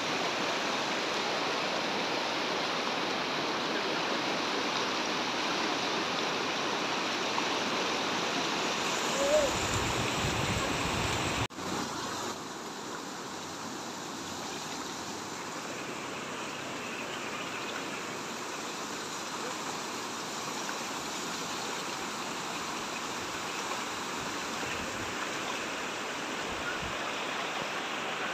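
Mahanadi floodwater rushing over a stone embankment: a steady roar of water. About eleven seconds in it drops suddenly to a quieter, steady rush of flowing water.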